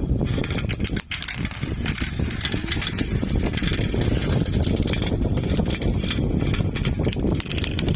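Marbles rolling and clattering along a marble run track: a continuous rolling rumble dotted with many small clicks, with a brief lull about a second in.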